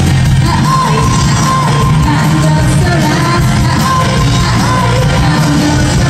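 A woman singing a Japanese anime song live into a microphone with long held notes, over loud instrumental backing played through concert PA speakers.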